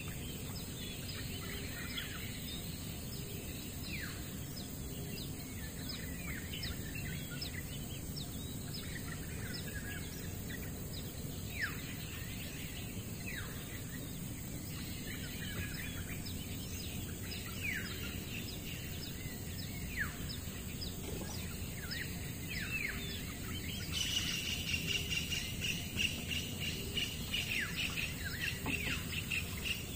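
Birds calling: many short, downward-sweeping chirps and whistles, scattered throughout. About three-quarters of the way through, a steady, pulsing, high insect buzz starts up and carries on beneath them.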